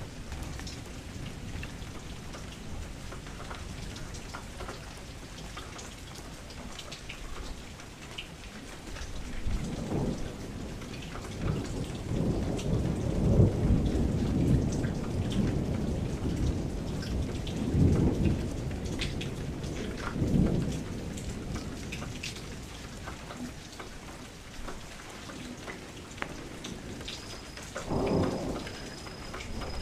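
Steady rain falling, with rolling thunder that swells up about a third of the way in and rumbles on, loudest near the middle, then fades. Another short rumble comes near the end.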